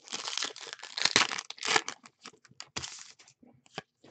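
Trading cards being handled in clear plastic sleeves: irregular crinkling and rustling of plastic with small clicks, loudest around a second in.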